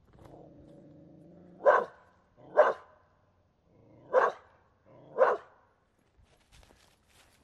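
A small dog growls low and steadily for about a second and a half, then gives four sharp single barks about a second apart. These are alarm barks at something out of sight.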